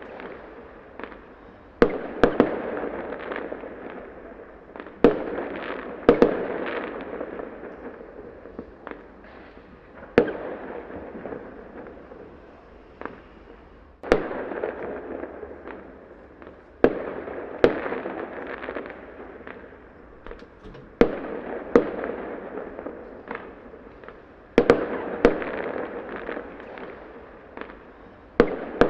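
Small fireworks going off: a sharp bang every few seconds, sometimes two close together, each followed by a crackling, fizzing tail that fades away.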